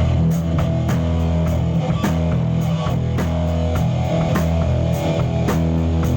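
Rock band playing together: electric guitar and bass holding sustained notes over a drum kit keeping a steady beat.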